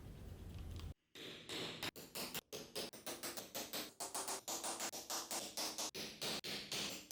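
Rhythmic hand scraping strokes, like abrasive work on a workpiece, about two or three a second. They start after a brief silent cut about a second in; before the cut there is a steady low hum.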